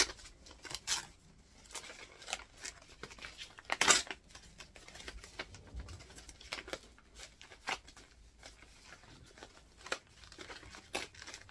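Paper envelope being torn open and a greeting card handled: irregular rips, crinkles and rustles of paper, the loudest about four seconds in.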